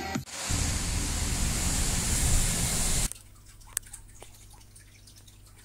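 A loud, steady rushing noise with no pitch, which stops suddenly about three seconds in. What follows is faint room tone with a low hum and two or three soft clicks.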